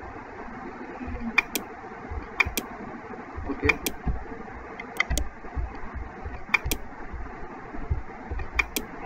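Computer mouse clicking: six double clicks spaced a second or more apart, over a steady background hum.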